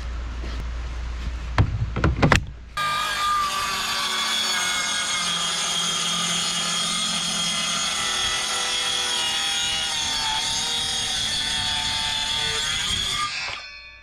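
A few clicks and knocks, then a cordless circular saw starts about three seconds in and runs steadily with a whine as it rips lengthwise along a rough-sawn plank for about ten seconds, winding down just before the end.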